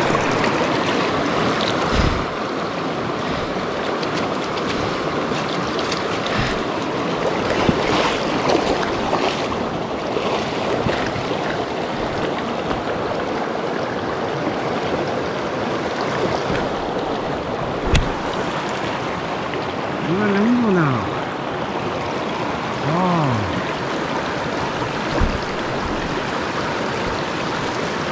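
A rocky mountain creek running steadily over stones, with a few sharp clicks scattered through it and two short pitched sounds that rise and fall near the end.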